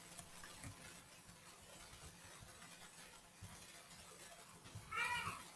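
Near silence: quiet room tone with a few faint ticks, and a brief voice sound near the end.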